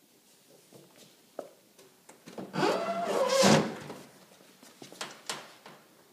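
Plastic cover on a Pitney Bowes DI600 folder inserter being pushed shut: a loud sliding scrape with a falling squeak lasting about a second and a half, with a few sharp clicks before and after.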